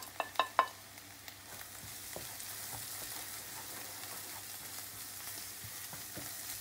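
A few quick clicks of a wooden spoon against the dish, then ground turmeric and red chili sizzling steadily in hot oil with fried onion and garlic-ginger paste as they are stirred in the pan.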